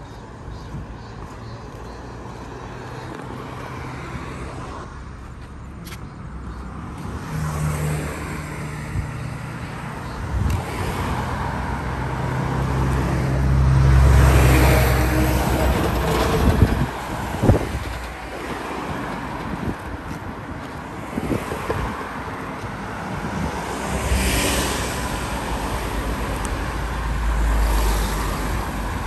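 Road traffic: motor vehicles passing close, their engine and tyre noise swelling and fading, loudest about halfway through and again near the end.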